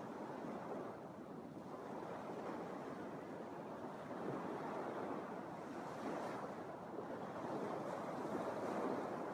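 Small Lake Michigan waves washing onto a sandy beach: a steady wash of surf that swells and eases every couple of seconds.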